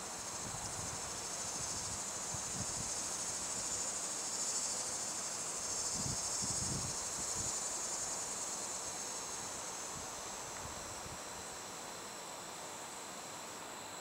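Steady high-pitched chorus of late-summer insects trilling, swelling a little in the middle, with a few faint low thumps around the middle.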